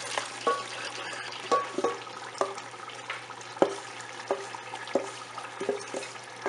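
Mixed dals and grains poured from a metal bowl into a pot of meat gravy, with a steady sizzle and about ten sharp, briefly ringing knocks of a wooden spoon against the metal bowl as the grains are pushed out.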